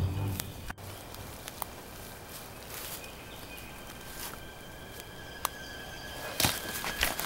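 Footsteps crunching through dry leaf litter and twigs on a forest floor: a few scattered crunches at first, then heavier and louder crunching from about six seconds in. A faint steady high tone runs underneath.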